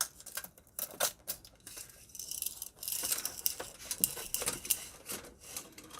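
Rustling, crinkling and many small clicks of hands handling the coffee grinder's power cord and its plastic wrapping as the cord is pulled out and measured.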